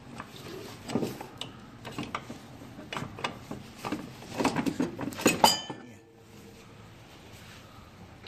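Metal clinks and knocks of tools and suspension parts as the front upper control arm is worked free and taken out, ending about five and a half seconds in with a sharp metallic clank that rings briefly.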